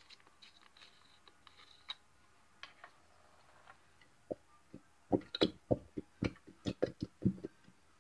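Plastic glue bottle squeezed upside down to pour glue into a bowl. A few faint clicks come first. About five seconds in, a quick irregular run of short sputtering pops follows as glue and air are forced out of the nozzle.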